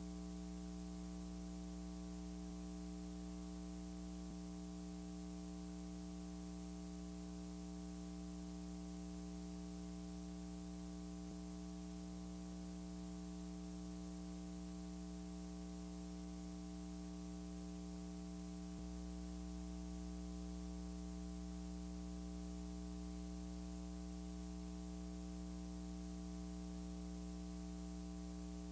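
Steady electrical mains hum with faint hiss, and no room sound or voices.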